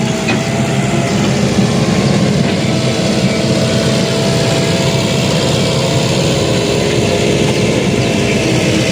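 Sumitomo hydraulic excavator's diesel engine running steadily, with a constant low drone and a faint steady tone.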